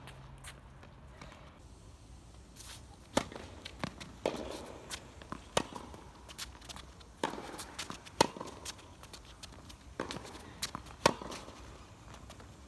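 Tennis rally on a hard court: a string of sharp pops from rackets striking the ball and the ball bouncing, with footsteps on the court between them. The hits come roughly a second apart from about three seconds in; the loudest are near the middle and near the end.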